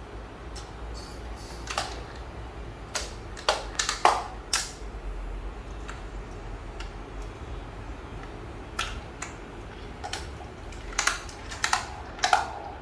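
Scattered light clicks and knocks, about a dozen at irregular spacing: toy cars being handled and knocked together, over a steady low hum.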